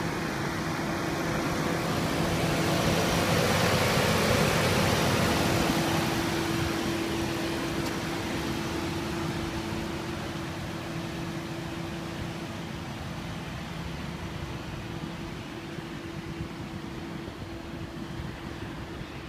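Ford Crown Victoria's 4.6-litre V8 idling with the hood open: a steady hum with a constant whine over it. It is loudest a few seconds in, near the engine bay, and fades gradually toward the rear of the car.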